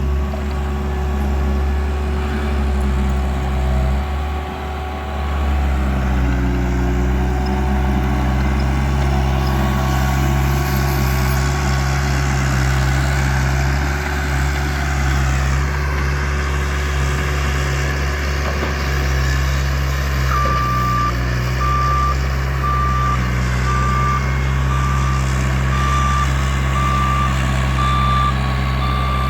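Bobcat's engine running steadily at work, its pitch dipping briefly a few seconds in. About two-thirds of the way through its backup alarm starts beeping, about once a second.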